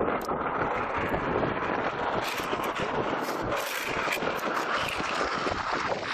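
Wind rushing over the microphone with longboard wheels rolling on asphalt, a steady noise with a few brief louder hisses.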